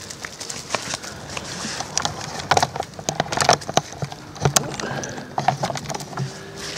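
Homemade chicken-wire crayfish trap being hauled out of the water and set down on the grassy bank: a run of irregular clicks, rattles and knocks from the wire mesh, bunched together in the middle.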